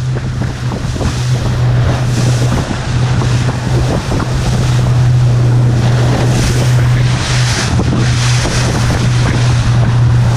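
Small open boat's motor running steadily under way in rough sea, with wind buffeting the microphone and waves and spray hitting the hull in repeated surges.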